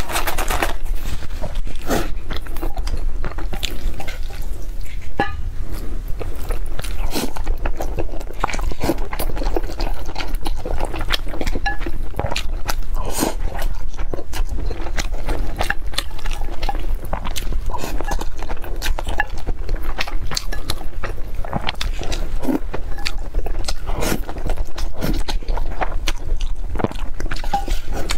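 Close-miked eating sounds: chewing and mouth noises as noodles, rice and fish are eaten, a dense run of short clicks over a steady low hum.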